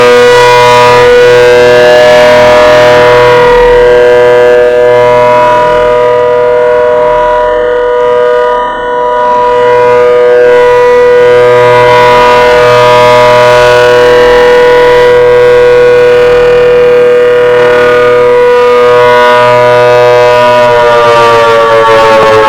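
A Hurricane electromechanical warning siren sounding a steady two-tone chord at full pitch, very loud. About 21 seconds in, it begins to wind down, its pitch falling.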